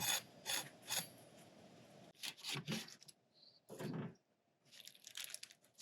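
Evenly spaced clicks, about two and a half a second, stopping about a second in, then a few scattered scrapes and knocks as camp cooking gear is handled.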